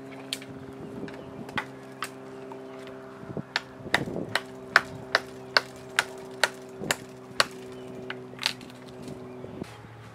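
Axe chopping wood: a few scattered strikes, then a quick run of sharp chops about two a second, and one last chop. A steady droning hum runs underneath and stops near the end.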